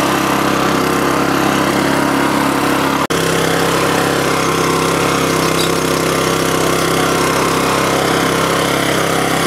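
Walk-behind rear-tine garden tiller's small engine running steadily under load as the tines chew through thick grass sod. The sound drops out for an instant about three seconds in.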